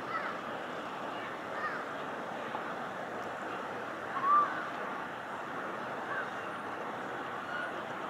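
Steady, distant jet engine noise from a Boeing 777 airliner passing overhead, with a few short bird chirps on top, the loudest about four seconds in.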